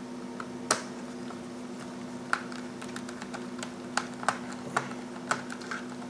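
Small screwdriver turning the screws out of the RAM cover on the underside of an IBM ThinkPad R52: irregular light clicks and ticks as the bit works in the screw heads.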